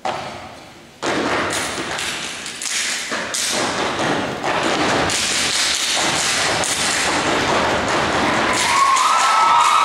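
Step team stepping in unison on a wooden stage: a single stomp echoing in the hall, then from about a second in a fast, dense run of stomps and claps. A high held tone joins near the end.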